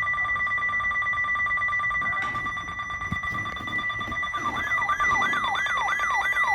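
Electronic emergency alert tones: two steady high tones sound together throughout, with a click about two seconds in. About four and a half seconds in, a siren-like sweep joins them, rising and falling quickly about two and a half times a second.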